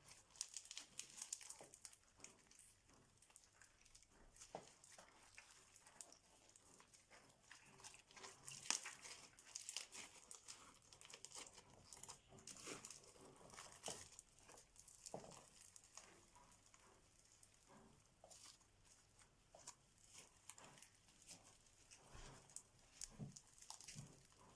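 Crunchy, sticky slime being squeezed and stretched by hand: quiet, dense crackling and clicking with sticky pops, the loudest snap about nine seconds in.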